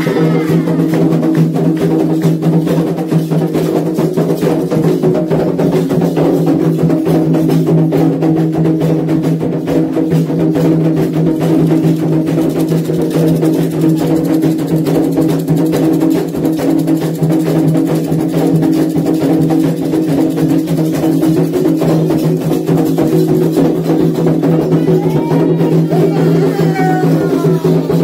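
Candomblé ritual drumming: atabaque hand drums playing a fast, dense toque for Iansã, with sharp percussion strokes over it. A voice sings briefly near the end.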